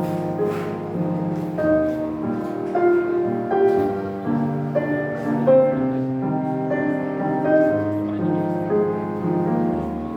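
Gentle instrumental music led by piano-like keyboard notes.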